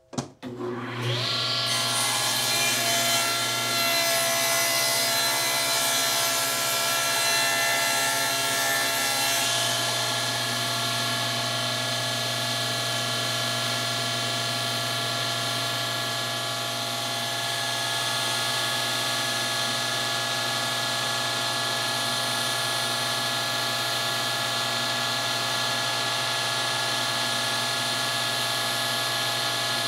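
Table saw motor spinning up, its whine rising in the first second, then running steadily while the tilted blade saws a bevel along a wooden board; the sound of the cut changes about a third of the way through.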